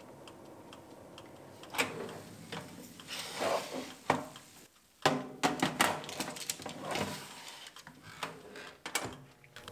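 Small Cuisinart air fryer oven opened and its metal baking tray turned around partway through baking: a string of clanks, knocks and scrapes of metal on metal, with a sharp knock near the end.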